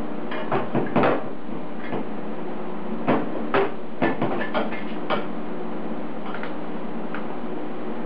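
A wrench clinking and knocking against steel while undoing the bolts that hold a tacked-up turbo exhaust manifold to the engine. Irregular sharp metallic clicks come a few at a time over a steady low hum.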